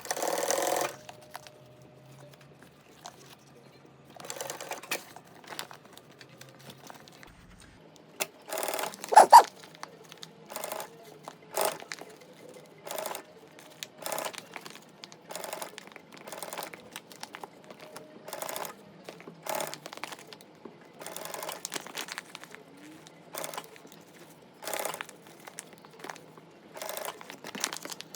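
Stiff laminated bag fabric being worked by hand and machine: a run of short crinkling and stitching sounds, coming about once a second in the second half, with a louder burst about nine seconds in.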